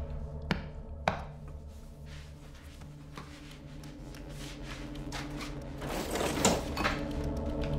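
A woman choking, her strained, rasping gasps for breath growing louder near the end, over a low steady drone. Two sharp clicks come within the first second or so.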